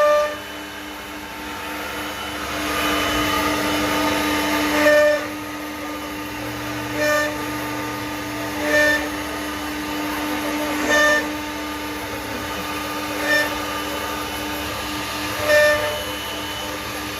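CNC router spindle running at a steady whine while the bit cuts a wooden door panel. Short, louder, pitched bursts come roughly every two seconds as the cutter works through repeated passes.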